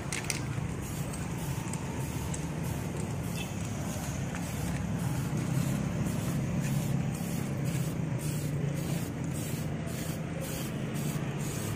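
Aerosol spray paint can hissing as paint is sprayed onto a car's plastic bumper, over a steady low drone.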